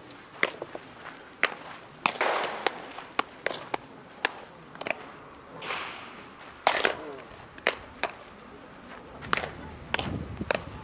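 Baseball practice: irregular sharp cracks and pops of balls being hit and caught in gloves, about every half second, with players calling out now and then.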